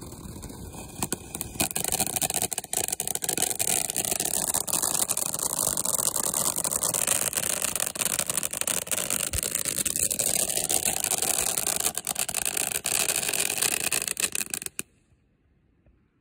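Ground fountain firework spraying sparks: a loud, steady hiss thick with fine crackling, building up about a second and a half in and stopping abruptly near the end.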